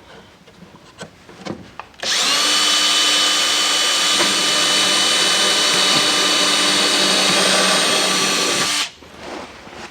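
Handheld electric drill drilling a pilot hole through a sheet-metal air filter box: a few light knocks as it is set, then the drill spins up about two seconds in and runs steadily for roughly seven seconds before stopping sharply.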